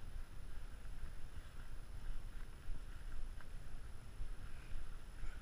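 Footsteps of a hiker walking a dirt forest trail, irregular soft steps over a low rumble of wind and movement on the camera's microphone.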